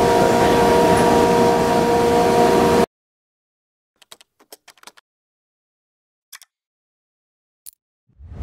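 Mazak Variaxis i-600 5-axis machining center running: a steady mechanical noise with several steady tones, cut off abruptly about three seconds in. After it come a few faint keyboard-typing clicks, two more single clicks, and a low thump near the end.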